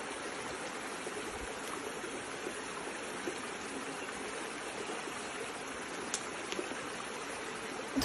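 Shallow, rocky stream running over stones, a steady rushing of water, with a couple of faint short clicks about six seconds in.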